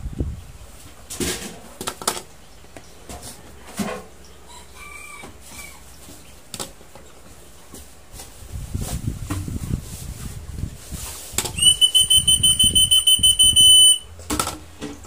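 African lovebird chick begging to be fed: a rapid string of high, shrill calls at one pitch, about nine a second, for a little over two seconds near the end. Before it come handling rustles, a few knocks and a couple of faint short chirps.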